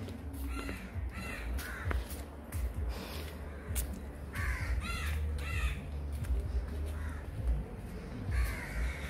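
Crows cawing in short runs of repeated harsh calls, one run near the start, another about halfway through and a third near the end, over a steady low rumble.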